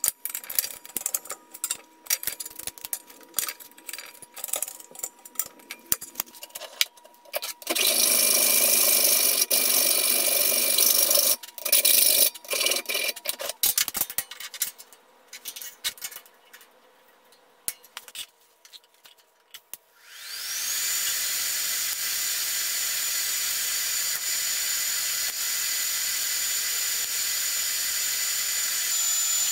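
Metal shop work: clicks and knocks of steel parts and a hydraulic press being handled, two loud noisy passages in the first half, then about two-thirds of the way in a steady hiss with a high whine that rises and levels off, heard while the braces are being TIG-welded.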